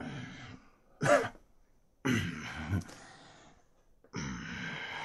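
A person's voice making wordless throat clearing and cough-like sounds in four short bursts, the one about a second in the loudest.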